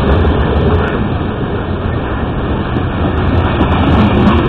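Coal hopper cars of a freight train rolling past close by: a steady rumble of steel wheels on the rails.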